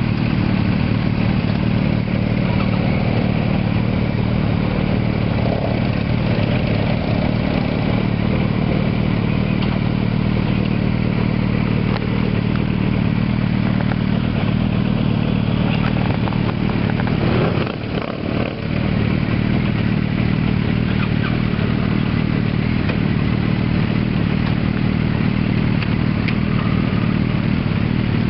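Motorcycle engines idling close by in a steady, loud rumble as bikes move off. The sound dips briefly about two-thirds of the way through.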